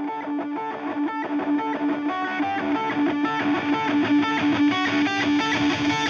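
Electric guitar picking a fast, repeated riff as a song's intro, getting gradually louder.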